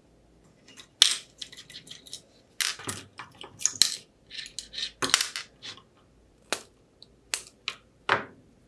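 Metal parts of a small DIY belt sander clinking and knocking as its DC motor is taken off the aluminium bracket by hand: an irregular run of sharp clicks and taps, the loudest about a second in.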